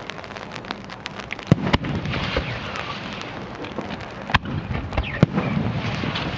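Fireworks going off: a dense, continuous crackle with a handful of sharp, louder bangs scattered through it.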